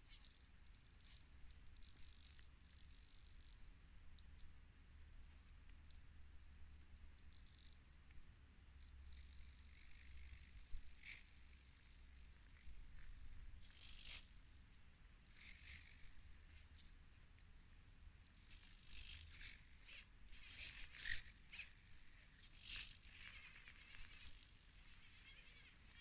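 Axial SCX24 micro RC crawler driving over a test course: short, irregular bursts of high-pitched whine from its small electric motor and gears as the throttle is worked, with rattling and clicking, more frequent in the second half.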